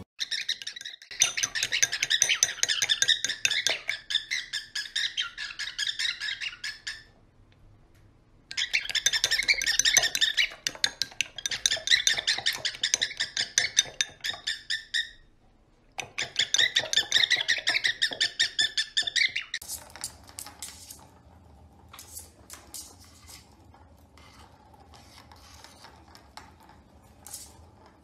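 A cockatiel chattering and whistling in rapid, high phrases, in three stretches broken by short pauses. For the last third, much quieter scattered clicks and taps.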